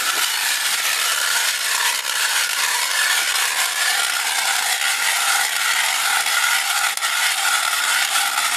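Hand-cranked ice auger boring through clear black lake ice, its blades shaving the ice with a steady, continuous scraping grind.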